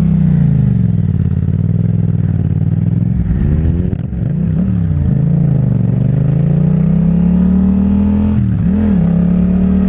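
Yamaha FZ-07's 689 cc parallel-twin engine running through a Two Brothers full exhaust on the move. The revs fall and rise several times, then climb slowly and steadily for a few seconds, dip briefly near the end and hold steady.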